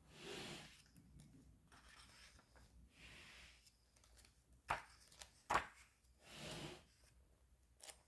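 Pages of an old hardcover book being turned: faint rustling swishes about every three seconds, with two sharp clicks near the middle.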